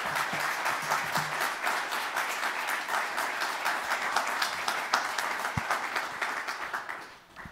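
Audience applause in a lecture room: many people clapping steadily, dying away near the end.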